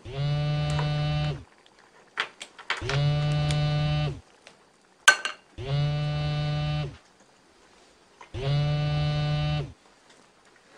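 A mobile phone vibrating in a repeating pattern: four steady low buzzes of just over a second each, with pauses of about a second and a half between them, each buzz bending up slightly in pitch as it starts. A short sharp click comes about five seconds in.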